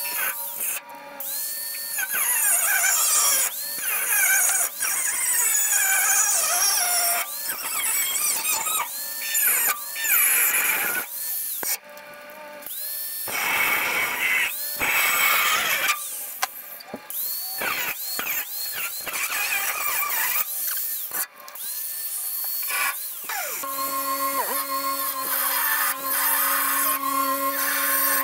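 Power cutting tool slicing through the rusted steel of a Chevy K5 Blazer's tail panel. The motor whine repeatedly dips under load and climbs back, with a squeal from the metal. Near the end the tool runs at a steadier pitch.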